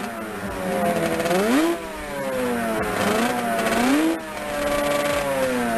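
Motorcycle engine revving hard and easing off about four times, its pitch climbing and dropping back, as the rider pulls the bike into a wheelie.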